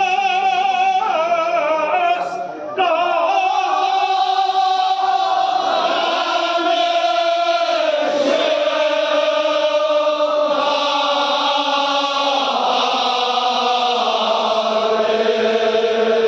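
Many men's voices chanting together in long held notes that slide slowly in pitch, a Kashmiri marsiya lament sung by the gathering, with a brief dip about two seconds in.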